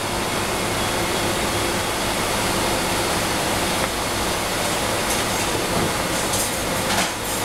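Steady, loud mechanical din with a low hum, and a few brief crackles near the end.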